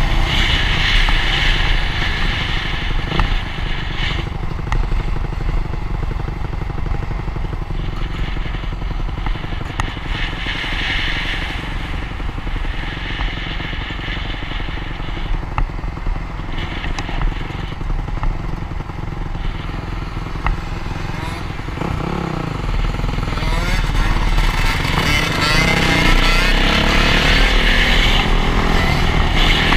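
Dirt bike engines running while riding along a road, with a steady rush of wind on the microphone. The engine note rises and falls with the throttle, and revs climb repeatedly over the last several seconds.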